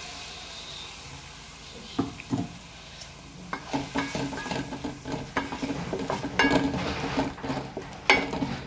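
Spoon stirring thick ground masala paste into fried onions in a steel pan. A soft sizzle fades over the first couple of seconds, then come repeated scrapes and taps of the spoon against the pan, more frequent and louder after a few seconds.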